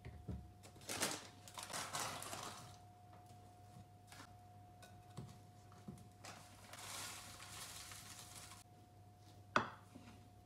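Dry cereal flakes rustling and pattering as they are poured from a paper packet into a wooden bowl, once for about a second and a half early on and again for about two seconds past the middle, with the packet crinkling. A single sharp knock comes near the end, over a faint steady hum.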